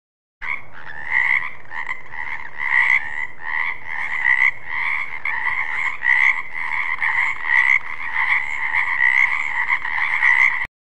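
Frogs croaking in a dense, steady chorus, with louder calls standing out about twice a second. It starts abruptly and cuts off just as abruptly near the end.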